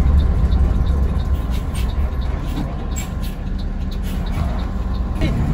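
Interior noise of a moving intercity bus: a steady low engine and road rumble with faint scattered ticks, easing slightly in the middle.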